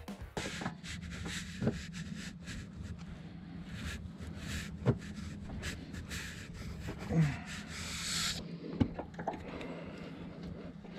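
Hands working a CV axle back into the front knuckle of a Honda Rincon ATV: scattered metal clicks and several sharper knocks, with rubbing and rustling, over a low steady hum.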